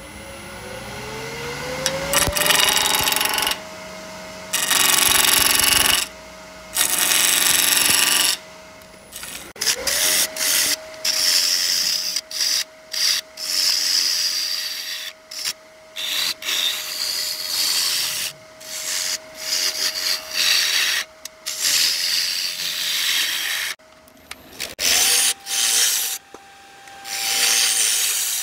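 Wood lathe motor whining up to speed, then running steadily, with a tool or abrasive scraping against the spinning wood in repeated strokes. The motor winds up again about ten seconds in and steps to a higher speed near the end.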